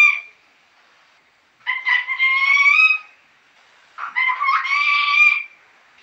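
Green parrot calling: two long, drawn-out calls, each about a second and a half and rising slightly in pitch, about two seconds apart, after the tail of an earlier call fades at the very start.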